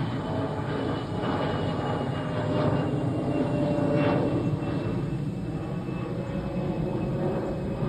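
An airliner flying past, its engine noise swelling to a peak about halfway through and easing off, with a faint whine slowly falling in pitch.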